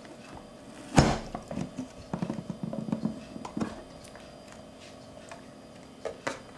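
Push-down food chopper's lid pressed hard onto a tomato slice: one sharp clack about a second in, then a run of quick clicks and crunches for about two and a half seconds as the tomato is forced through the blade grid. Two short clicks a little after six seconds as the lid is lifted open.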